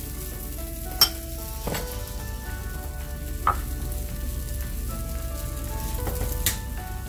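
Dosa frying in oil on a hot dosa pan: a steady sizzle. A few sharp knocks sound over it, the loudest about a second in.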